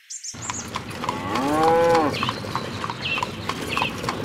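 A cow moos once, about a second in: one call that rises and falls in pitch over about a second. Short high chirps and a steady patter of light clicks run underneath.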